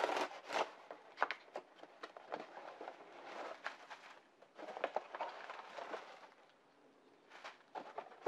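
Cardboard shipping box being cut open with a knife and unpacked: irregular sharp clicks and bursts of scraping and rustling from the cardboard and the plastic bubble wrap around the parts, with a brief pause a little past the middle.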